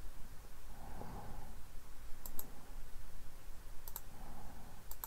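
Computer mouse clicking: short sharp clicks in quick pairs, about two seconds in, about four seconds in, and again near the end.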